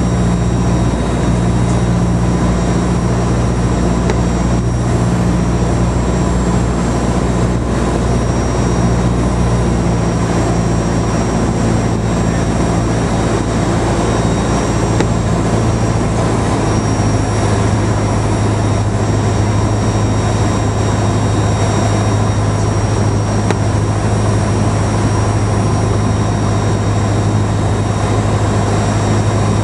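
A Cessna 172's piston engine and propeller drone steadily, heard inside the cabin. Partway through, the engine note changes and settles into a single lower, steadier hum.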